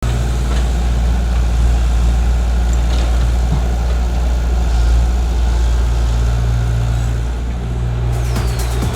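Tata Hitachi excavator's diesel engine running steadily with a deep, even hum.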